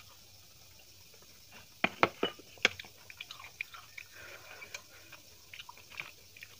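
Close-miked eating and drinking mouth sounds: a few loud wet gulps from drinking a glass of milk about two seconds in. Then soft, scattered sticky clicks as fingers mix biryani rice on the plate.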